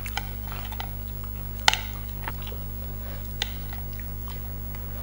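Cutlery clicking against plates during a meal: a few short sharp clinks, the loudest a quick double clink a little under two seconds in, over a steady low hum.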